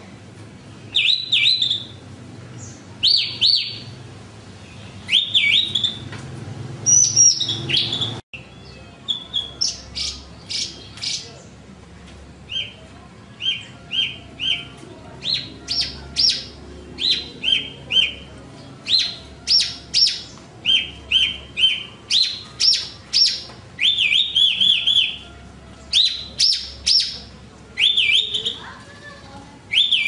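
Branjangan (Javan bush lark) singing: a steady run of short, high chirping phrases, several a second. About eight seconds in, the recording cuts abruptly to another take with a different background hum.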